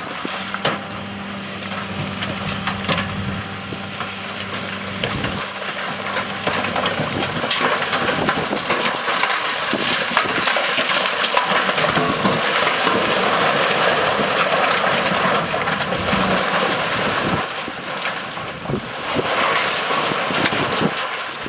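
Diesel engine of a heavy earthmoving machine running steadily. After about six seconds a dense crunching and scraping of dirt and rock being moved takes over and stays loud.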